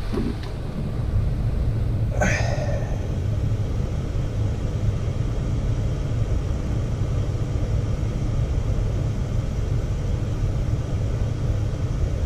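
Furnace blower running steadily with a low rumble, moving air across the indoor coil while the air conditioner is cooling. A short sharp noise stands out about two seconds in.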